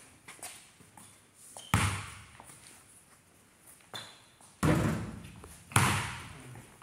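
Three loud thuds of a basketball hitting hard in a big empty gym, about 2 s, 4.5 s and 6 s in, each ringing out with a long echo, with a few softer knocks in between.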